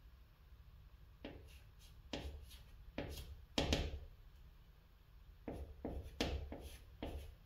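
White chalk writing on a green chalkboard: short scratching strokes and taps as a Chinese character is written stroke by stroke. The strokes begin about a second in, the loudest come just past the middle, and after a short pause a quicker run of strokes follows near the end.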